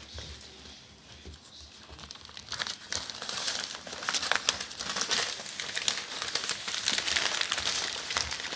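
Newspaper spread on the floor crinkling and rustling under dogs' paws as they walk and scramble over it, growing louder and busier about three seconds in.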